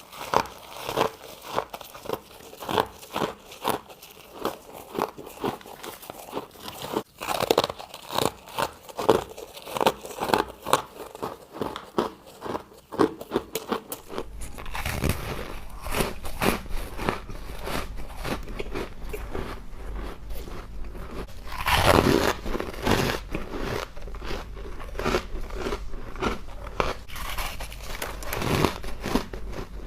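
A person biting and chewing freezer frost and ice: a long string of crisp crunches, roughly two a second at first, with a low steady hum coming in about halfway through.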